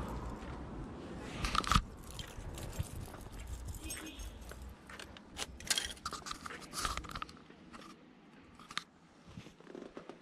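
A cloth sack rustling and crunching as it is gripped and handled, a run of short irregular crackles and scrapes.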